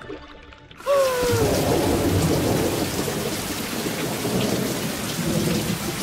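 A loud rush of rumbling, hissing noise like heavy rain and thunder breaks in suddenly about a second in and runs on steadily. A short falling wail sits at its start.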